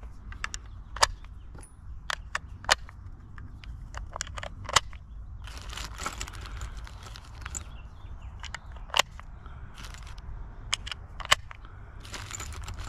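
Loose brass .223 cartridges clinking against each other in a plastic bag as a hand sorts through them: scattered sharp metallic clicks, with two spells of the bag crinkling, about halfway through and near the end.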